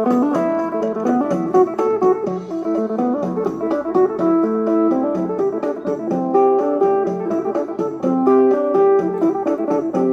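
Thai procession band music: a fast, busy plucked-string melody over a steady beat.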